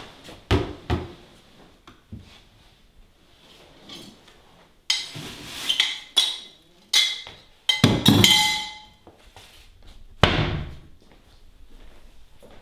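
Kitchen handling sounds. A glass is set down on the counter with two knocks, then a ceramic plate clinks and scrapes at the cupboard under the sink, with sharp clattering strokes and some ringing. A cupboard door thuds shut about ten seconds in.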